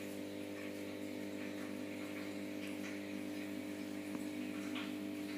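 Steady electrical hum of the goldfish aquarium's pump, with faint irregular ticks and splashes of water and bubbles at the surface.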